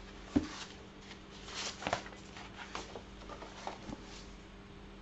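A hardcover book being handled: a sharp knock about half a second in, then paper rustling and small taps.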